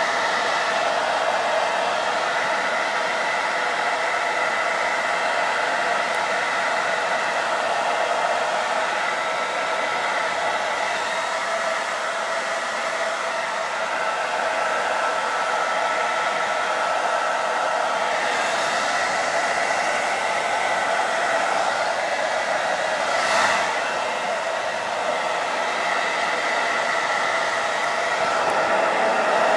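Hand-held hair dryer running steadily, a whooshing blow with a held whine in it, briefly gusting louder about three-quarters of the way through.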